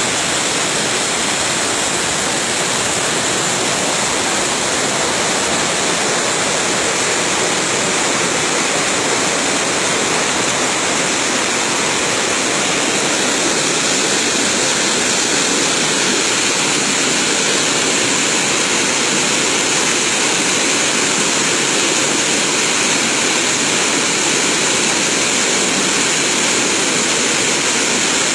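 Spring water gushing out of an opening at the foot of a rock face and rushing over stones: a steady, loud rush of water.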